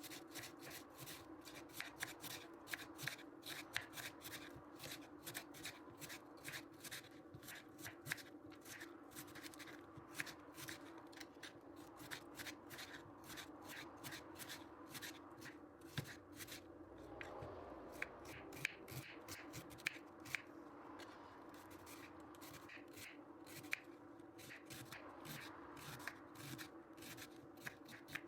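Raw red cabbage crackling crisply as it is prepared by hand, a dense run of quick clicks and crunches, over a faint steady hum.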